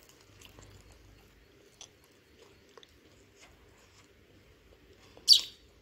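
Faint, scattered taps of a sparrow's beak pecking crumbs off a plate, with one brief, loud, high-pitched sound about five seconds in.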